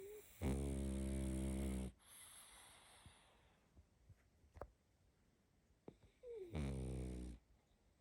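A sleeping pug puppy snoring: two long snores about five seconds apart, each just over a second. The first is followed by a softer breath out.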